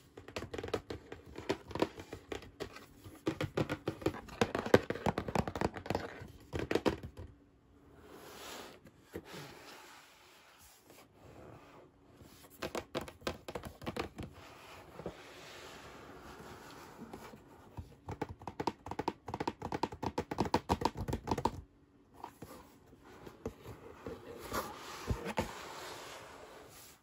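Hands handling and turning a cardboard toy box, with scratching, rustling and light tapping on its surface in three stretches, with short lulls between.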